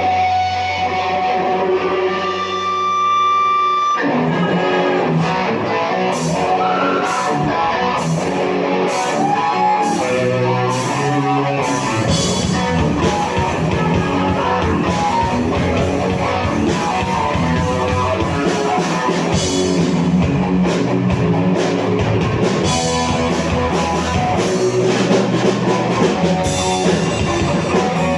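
Live rock band playing an instrumental passage: held notes for the first few seconds, then about four seconds in the drum kit, bass and electric guitars come in together and carry on at full volume.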